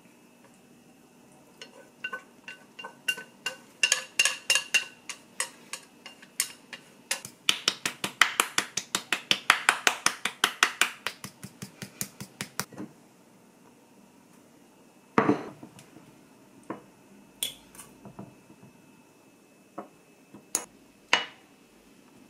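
A utensil clinking against a ringing bowl: scattered taps speed up into a fast, even run of about six strokes a second lasting some five seconds, then stop, followed by a few separate knocks and clinks.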